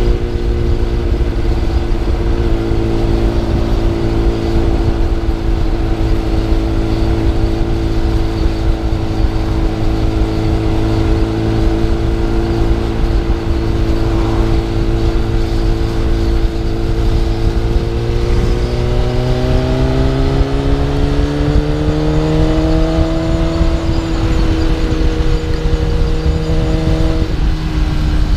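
Superbike engine running at a steady pitch while cruising, heard from on board over low wind rumble. About two-thirds of the way through, the engine note rises as the bike accelerates, then drops back a little near the end.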